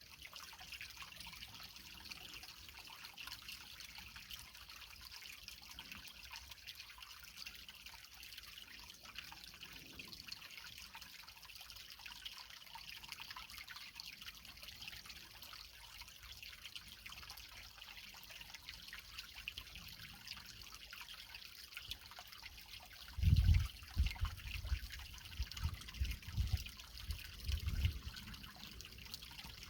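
Creek water trickling and splashing over rocks in a steady, hissing flow. Near the end, several seconds of irregular low thumps rise well above the water.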